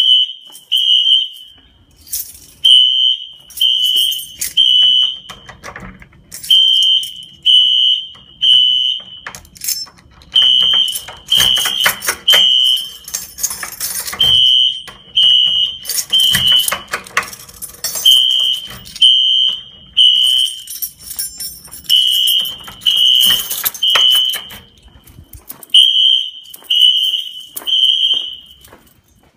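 Wheelock fire alarm horns sounding a high-pitched three-beep temporal evacuation pattern: three short beeps a second apart, a pause, then repeating. This is the building's fire alarm system in alarm during an inspection test. Footsteps on a hard floor click between the beeps.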